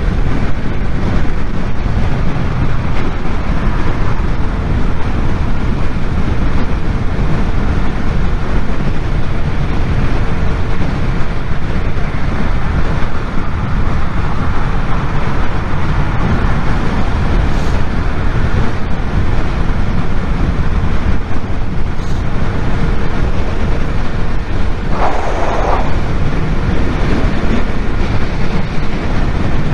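Motorcycle cruising at motorway speed: a steady rush of wind on the helmet-mounted microphone over the engine's drone and tyre noise, with a short louder rush near the end.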